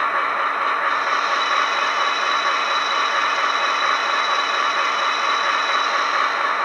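Sound decoder of an HO scale Broadway Limited Paragon 2 model of an EMD SW7 diesel switcher playing its diesel engine running sound through the model's small speaker: a steady, even engine noise with a hissy edge.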